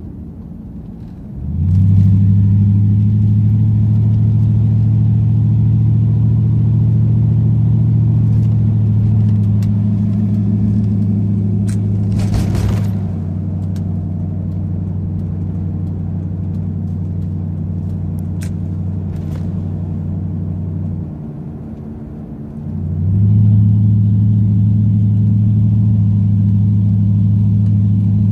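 Pickup truck's exhaust droning at a steady engine speed while driving, loud and deep, its tips holed. The drone comes in sharply about a second and a half in, eases near the middle, drops away briefly and returns strongly for the last few seconds. A short hiss comes about halfway through.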